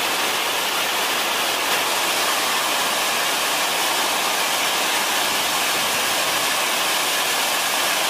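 A waterfall pouring over rock, heard as a steady, even rush of water with no change in level.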